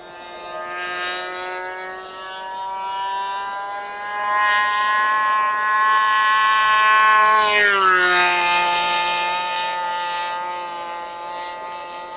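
O.S. 91 FX glow engine on an RC model airplane running at high throttle, a steady high whine. It grows louder as the plane approaches, drops in pitch as it passes close about 7.5 seconds in, then carries on lower and a little fainter.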